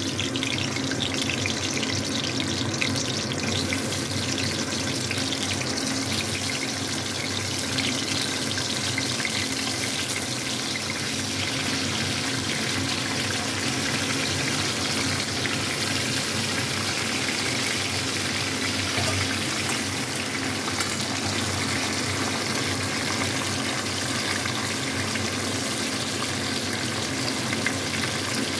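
Sun-dried raw mango pieces sizzling steadily as they fry in hot mustard oil.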